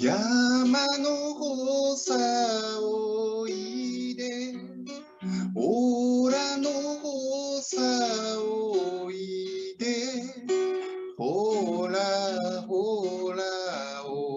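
A man sings a slow song in Japanese to his own strummed acoustic guitar, holding long notes and sliding between them, heard through a video call.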